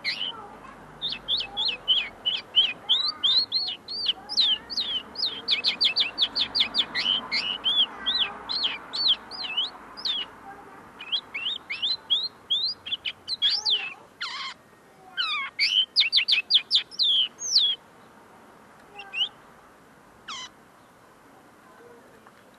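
A caged common linnet singing a long, fast twittering song of quick chirps, broken by one harsh, wide note about two-thirds through, then a couple of single call notes before it falls quiet. It is a young bird still perfecting its song.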